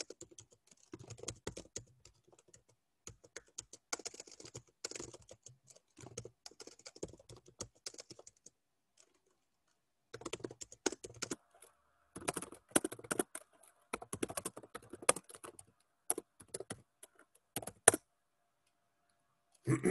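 Typing on a computer keyboard: runs of quick keystrokes, a pause of about a second and a half midway, then more typing ending with a sharp, louder keystroke near the end.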